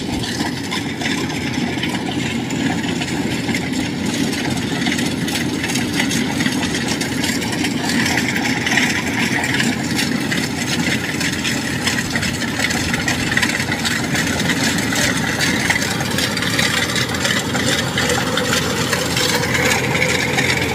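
Tracked rice combine harvester's engine and machinery running steadily as it works through soft, muddy paddy.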